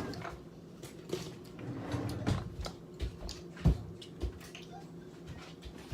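A knife spreading butter on toast: short, soft scrapes across the bread, with a few light knocks of the knife.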